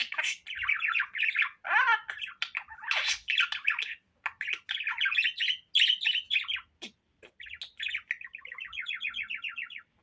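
Budgerigar chattering and warbling in quick runs of chirps broken by short pauses, ending with a fast, even rattling trill of about ten notes a second.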